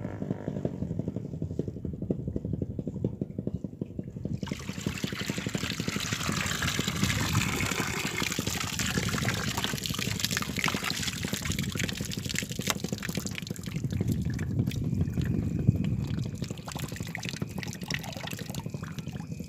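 Water pouring and dripping out through a fine-mesh hand net lifted from a pond, splashing into the water below. The draining starts about four seconds in, runs strongest for roughly ten seconds, then thins to scattered drips.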